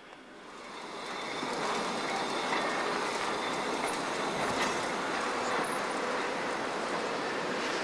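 Loose freight wagon rolling down a hump-yard track after being released from the hump: a steady rumble of steel wheels on the rails that swells up in the first second or so, with a few faint high wheel squeals.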